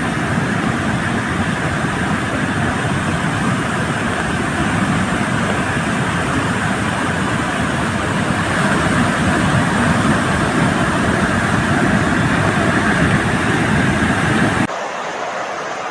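Beas river in flood, its churning floodwater rushing in a loud, steady noise. About a second before the end the sound cuts suddenly to a quieter rush.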